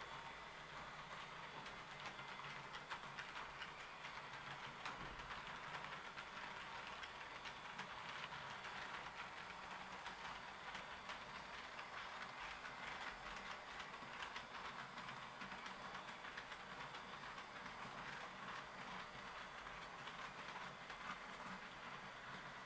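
Roco HO-scale model train running on its track: a locomotive pulling passenger coaches, giving a faint steady rolling noise with a light patter of small clicks from the wheels on the rails and a thin steady whine.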